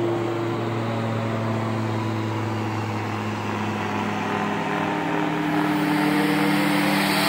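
Twin 50 mm electric ducted fans on a foamboard RC flying wing running with a steady whine, rising in pitch and brightness near the end as the throttle comes up for a hand launch.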